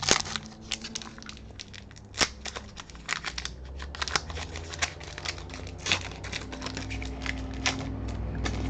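Foil wrapper of a Pokémon trading card booster pack crinkling and being torn open, with many sharp crackles and a few louder snaps.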